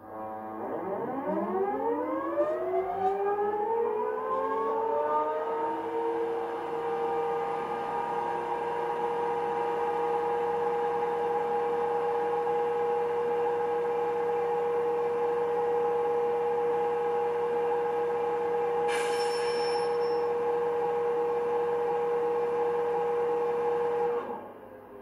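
Sound-fitted Accurascale Class 92 model electric locomotive playing an electric whine that rises in pitch over about six seconds, then holds steady before cutting off near the end. A short hiss comes about three quarters of the way through.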